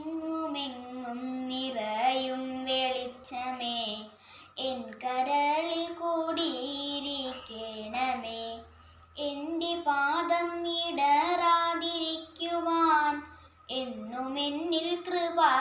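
A young girl singing a Malayalam prayer song solo, in long sung phrases separated by short breaths.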